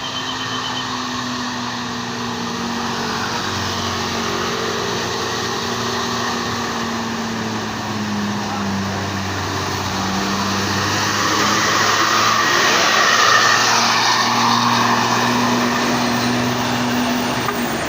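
Bus diesel engine pulling up a steep incline. It is steady and grows louder as the bus approaches, loudest about thirteen seconds in, then eases a little.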